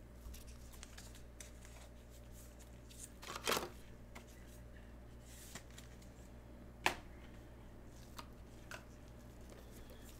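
Trading cards being handled and flipped through: faint sliding and rustling with scattered clicks, a louder rustle about three and a half seconds in and a sharp click near seven seconds.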